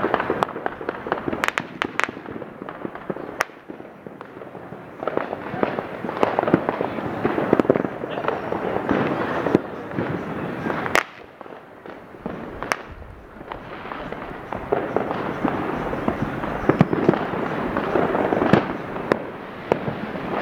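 Firecrackers and fireworks going off all around at once: a continuous crackle of rapid small pops that swells and fades, with sharper, louder bangs standing out several times in the first few seconds and again about eleven and thirteen seconds in.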